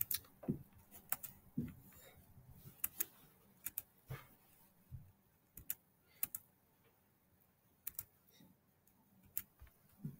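Faint, irregular clicking of a computer mouse and keyboard, about a dozen sharp clicks spread unevenly, with a few soft low thuds between them.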